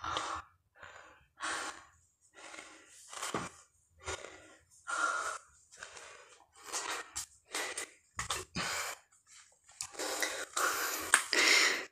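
A man panting heavily, one loud breath roughly every second, out of breath after 200 push-ups in a row. The breaths grow louder near the end.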